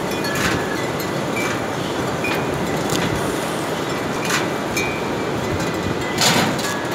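Pit bull chewing on a whole coconut: about five sharp crunches as he bites into the husk, the loudest near the end, over a steady rushing noise.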